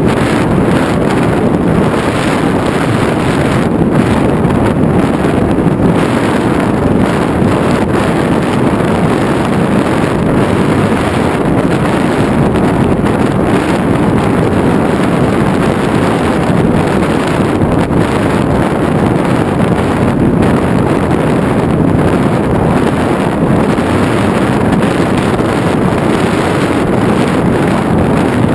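Steady rush of wind over an onboard camera's microphone during flight, loud and unbroken, with no distinct motor pitch showing through.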